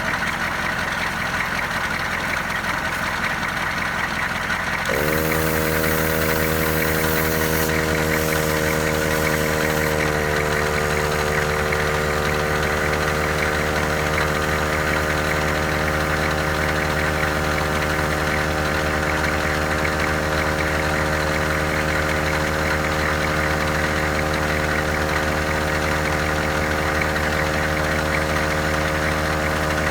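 A truck engine idles steadily; about five seconds in, a 12-volt Pittsburgh 150 PSI portable air compressor starts up. Its motor hum climbs slightly in pitch and then holds steady as it pumps up a tire. A high hiss sounds for the first few seconds after it starts.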